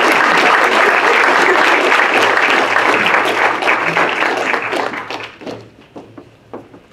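Audience applauding, a dense clatter of many hands that thins out and dies away over the last two seconds or so, leaving a few scattered knocks.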